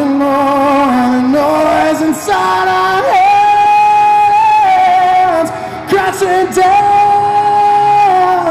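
Live rock song: a male lead singer belts long, held notes over the band through the concert PA, one held from about three seconds in and another near the end.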